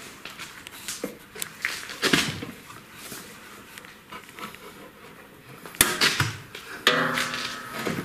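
A few sharp metallic clicks and knocks as a washing machine's tub suspension coil spring is worked off its hook on the steel frame. The sharpest knock comes about six seconds in, with a short clatter just before the end.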